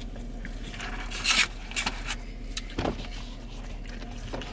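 Steady low hum of a car cabin with the engine and heater running, under a few short eating and drinking noises, the loudest about a second in.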